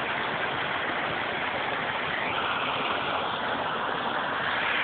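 Small waterfall and stream running over rocks, heard as a steady rush of water.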